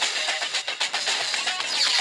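A ringtone playing through the SK Multi Slider SK-7400 phone's small loudspeaker: a busy, fast-moving tune with a thin sound and almost no bass.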